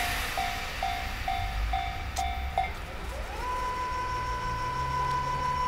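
Japanese level-crossing warning bell ringing in even strokes, a little over two a second, then stopping about two and a half seconds in once the train has passed. A steady whine then rises in and holds, with a low engine hum joining under it.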